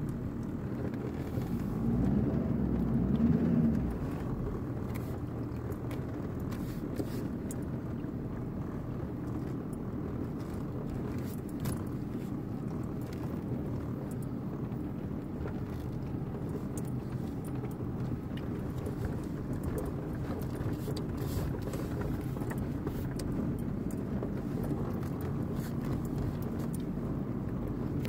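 Vehicle driving along a rough dirt track, heard from inside the cab: steady engine and tyre noise with light rattles and knocks from the bumps, louder for a couple of seconds near the start.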